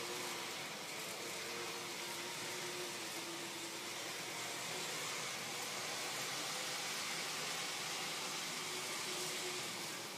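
N-scale model train climbing a helix: a steady whirring hiss from the small locomotive and the cars' wheels on the track, easing off right at the end.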